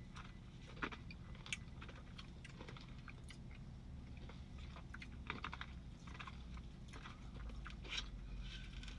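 A person eating a Dairy Queen cotton candy Blizzard: faint, scattered small clicks and smacks of chewing and biting.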